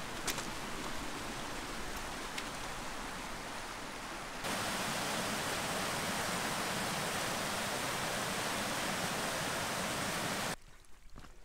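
Mountain creek rushing over rocks, a steady hiss of moving water. About four seconds in it becomes louder and brighter as a small cascade is heard close up, then it cuts off sharply near the end.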